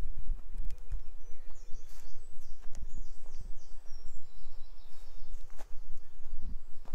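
Footsteps walking along a path at an even pace. A small songbird sings a run of quick, high notes from about two seconds in until about five seconds in.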